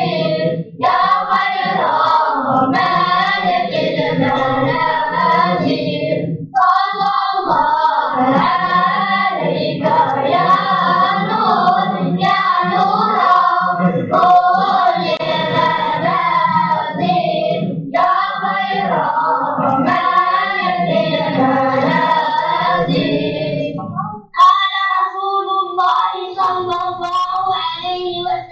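A children's vocal group singing together. After a short break near the end, a thinner, higher vocal line carries on.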